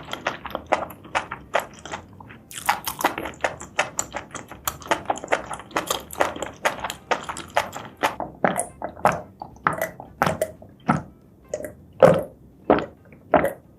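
Close-miked chewing of spicy seafood and mushrooms: quick, wet, squelching mouth clicks, about three to four a second. Near the end they come fewer and louder.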